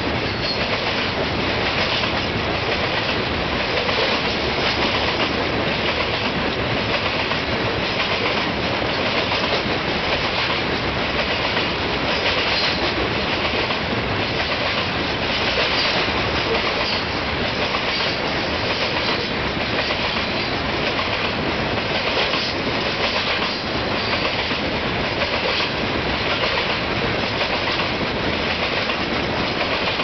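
Loaded gravel hopper cars of a freight train rolling past at speed, their steel wheels clicking over the rail joints in a steady clickety-clack, over a constant rumble and rattle of the cars.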